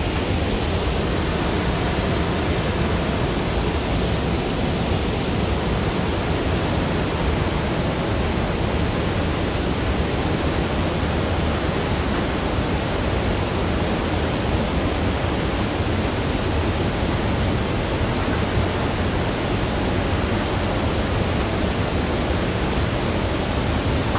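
Iguazu Falls: the loud, steady rush of heavy falling water, unbroken throughout.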